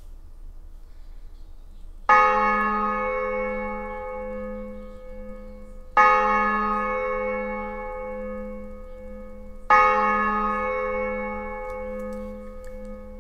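A large church bell tolling, struck three times about four seconds apart. Each stroke rings on and slowly fades, with a low hum that pulses as it dies away.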